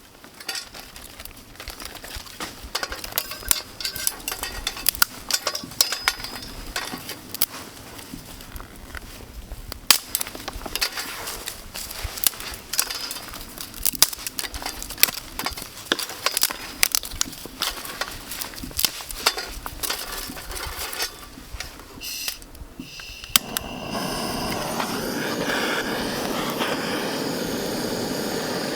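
Campfire wood crackling and popping with dense, irregular snaps. A little before the end the crackling stops abruptly and a louder, steady rushing noise takes over.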